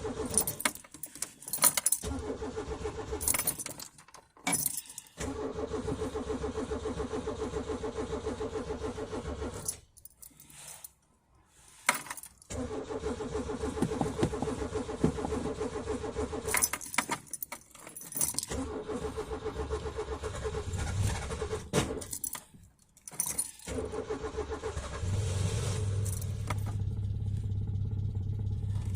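Peugeot 205's starter motor cranking the cold engine in repeated attempts of one to five seconds each, with short pauses and clicks of the key between them: a hard cold start. In the last few seconds a steadier, lower hum takes over.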